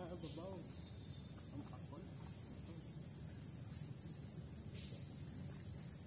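Insects droning in a steady, unbroken high-pitched chorus, with a faint voice briefly at the start.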